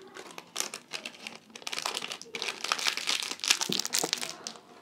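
Crinkly rustling and crackling as small items are handled and gathered up by hand, busiest through the middle and latter part.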